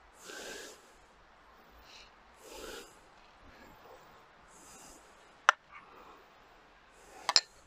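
Soft breaths close to a clip-on microphone, two near the start, then a few short sharp clicks about halfway and near the end, the kind a spoon makes tapping a bowl or board while food is being prepared.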